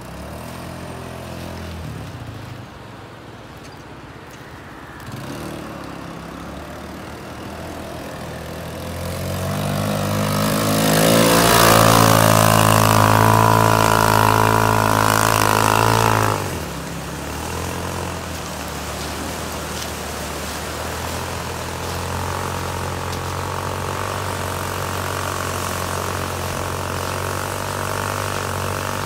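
Kuba MX220 ATV engine running as the quad rides over sand and gravel. It grows louder from about a third of the way in, stays loudest for several seconds, drops off suddenly, then settles into a steady running sound.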